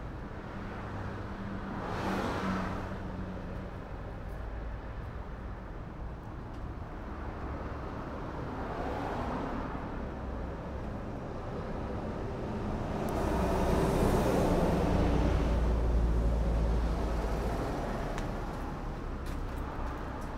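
Passing road traffic: vehicles go by three times, each a swell of engine and tyre noise that rises and fades, the longest and loudest about two-thirds of the way through, over a steady low hum.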